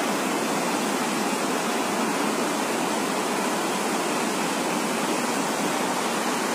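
Fast-flowing floodwater rushing past submerged houses: a steady, even rush of water that does not change.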